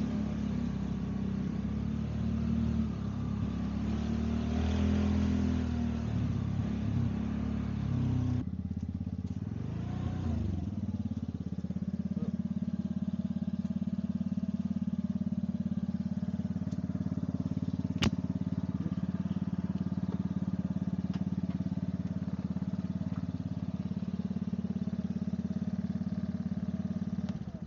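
Motorcycle engine running with road and traffic noise, uneven at first and changing abruptly about a third of the way in, then settling into a very steady drone. One sharp click comes about two-thirds of the way through.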